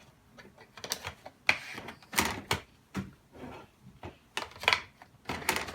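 Toy cash register being worked by hand: a string of irregular sharp clicks and clacks as its keys and parts are pressed.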